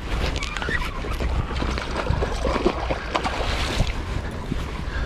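Wind buffeting the microphone, with irregular splashing as a hooked cherry salmon fights at the surface of the river.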